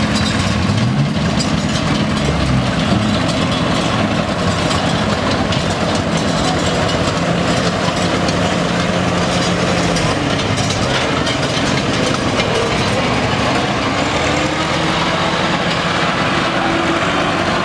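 Engines of small vintage farm tractors running at a slow, steady drive pace as they pass, a low drone over the chatter of spectators.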